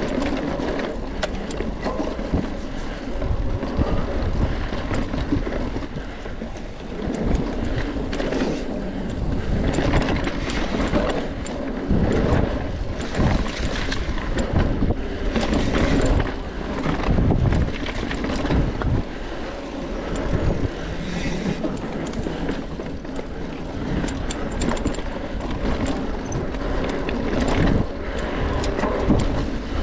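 Wind rushing over the microphone of a camera riding on a mountain bike, with a continuous low rumble and irregular knocks and rattles from the bike going over rough dirt trail.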